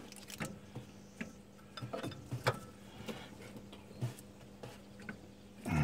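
Irregular light metal clicks and taps of a small spanner working a pipe fitting on an alternator as it is tightened, over a faint steady hum.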